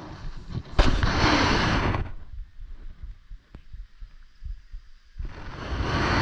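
Two loud bursts of rushing, rumbling noise on the microphone. The first comes about a second in and lasts about a second; the second builds near the end.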